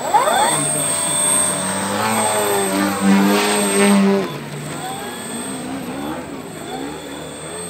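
Large radio-controlled P-51 Mustang model's engine and propeller in a fly-by, the engine note sliding in pitch as it passes. It is loudest about three to four seconds in, then falls away sharply.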